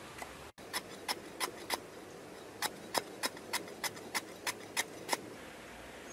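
Large knife chopping sliced lemongrass on a wooden board: four sharp chops, a short pause, then a quicker run of about nine chops, roughly three or four a second.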